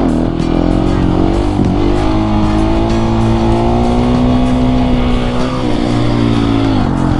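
Husqvarna 701 supermoto's single-cylinder engine running on the move, its pitch holding and slowly climbing, then dropping sharply about five and a half seconds in and again near the end.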